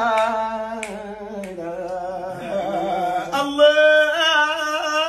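Unaccompanied male voice singing a Sufi zikr chant, with long melismatic notes and vibrato, moving into a new phrase at a different pitch about three seconds in. Two sharp clicks about a second in.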